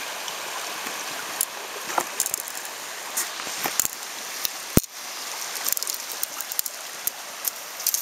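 Shallow stream flowing steadily over a riffle, a constant rush of water. Scattered sharp clicks and knocks sit on top, the loudest about halfway through.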